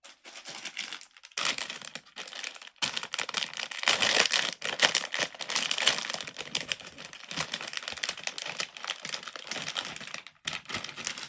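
Plastic fidget toys being handled: a dense run of crinkling and small clicks, pausing briefly about a second and a half in, again near three seconds, and once more just before the end.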